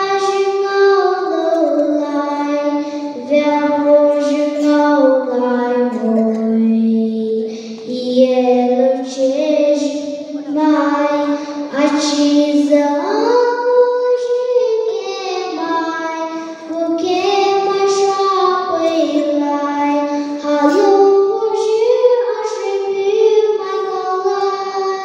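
A young girl singing solo into a handheld microphone, one voice holding long notes that step up and down in pitch.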